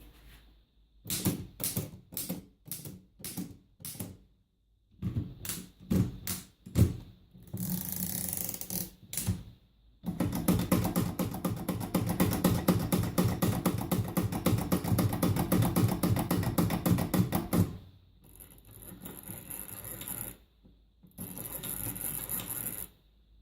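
Smith Premier No. 2 typewriter being typed on. At first come separate key strikes about half a second apart. Then comes a fast, even run of typing lasting about eight seconds, broken by a few stretches of rasping mechanical noise.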